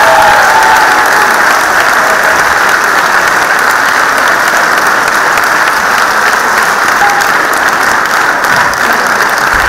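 A large audience clapping in sustained applause, a dense steady patter of many hands that eases slightly toward the end.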